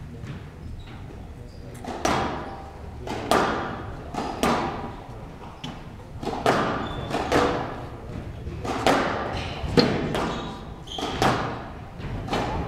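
Squash rally: the ball cracks off racquets and the court walls about once a second, each strike echoing in a large hall. The rally starts about two seconds in.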